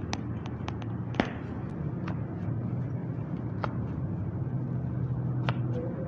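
Scattered light clicks and taps from a chiropractic adjustment, with one sharper knock about a second in, over a steady low hum of background noise.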